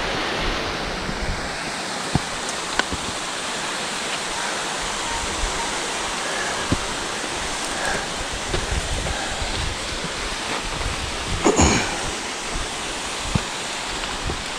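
Steady rushing of a nearby waterfall, with a few faint clicks and one brief louder burst about eleven and a half seconds in.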